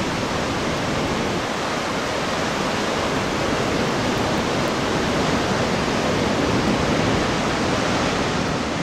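Ocean surf churning and foaming among rocks, a steady rushing wash of water.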